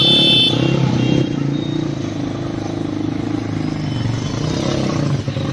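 An engine running steadily. A brief high-pitched tone sounds in the first half second.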